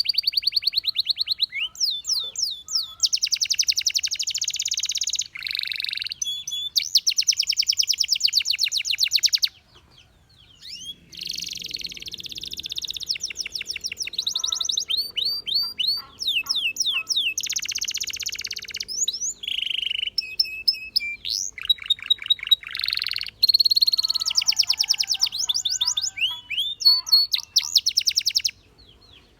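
Domestic canary singing a long song of rapid trills and fast repeated chirping notes, with a short pause about ten seconds in.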